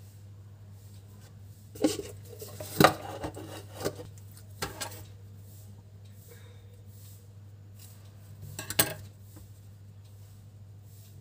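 Metal scissors clicking and clattering on a tabletop as they are handled, in a cluster of sharp knocks about two seconds in and again near the end, over a steady low electrical hum.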